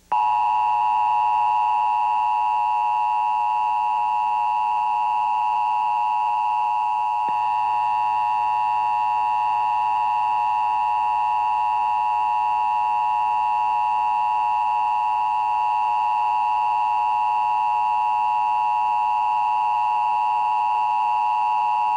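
Emergency Broadcast System attention signal: the two-tone alert of 853 Hz and 960 Hz sounded together as one loud, unbroken, harsh steady tone. It marks the start of an EBS test.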